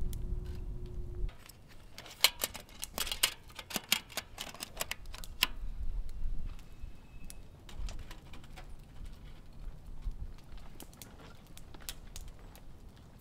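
Metal clicking and clinking as a tall metal pot with a clip-latched lid and fold-out handle is handled on a stainless steel counter: a quick run of sharp clicks in the first few seconds, then sparser light clicks. A low hum cuts off about a second in.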